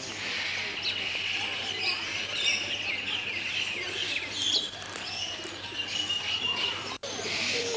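Many birds chirping and twittering at once, a dense chorus of short high calls, with a momentary dropout in the sound near the end.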